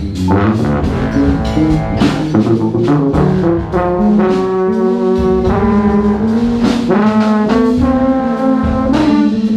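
Large jazz ensemble playing live: brass and saxophones hold long chords over steady drum-kit hits.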